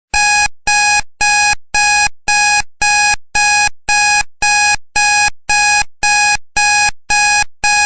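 Electronic alarm of a countdown timer going off as the time runs out: a loud, steady train of identical beeps, about two a second.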